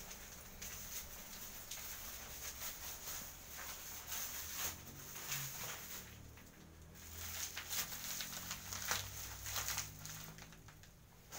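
Scattered clicks, knocks and rustling of objects and plastic bags being handled and moved about, with a faint steady high-pitched hiss behind.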